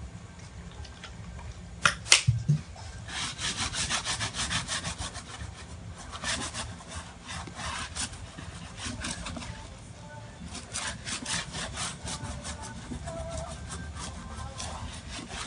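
A crumpled tissue rubbed back and forth on a computer screen's glass, erasing drawn marks, in spells of quick, even strokes several times a second. A couple of sharp clicks come about two seconds in.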